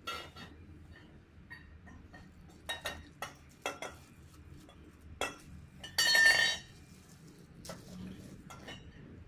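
Steel trampoline leg tubes being handled and set down on a tiled floor: scattered light knocks and clinks, with one louder metal clatter that rings briefly about six seconds in.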